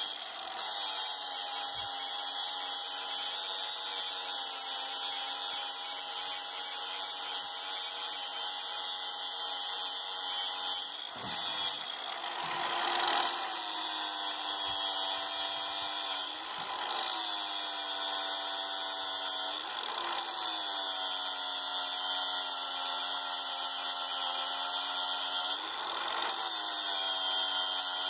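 Cordless angle grinder running steadily while grinding down a pipe fitting, its motor whine sagging in pitch and recovering several times as the disc bites into the part, with a louder, rougher stretch of grinding about twelve seconds in.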